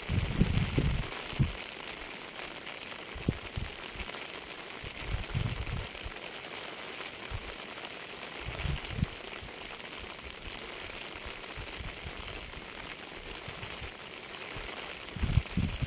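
Steady rain falling, an even hiss, with short low thumps at irregular moments: near the start, a few seconds in, about halfway and again near the end.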